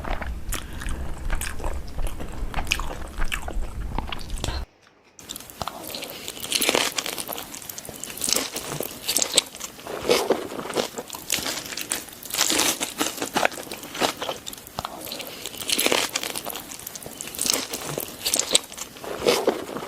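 Close-up chewing and crunching of food in the mouth, with many short crisp crunches and bites. A steady low hum sits under the first few seconds, and the sound cuts out for half a second about five seconds in.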